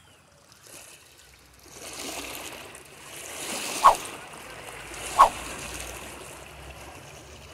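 Water splashing at the shoreline, with two short sharp splashes a little over a second apart near the middle.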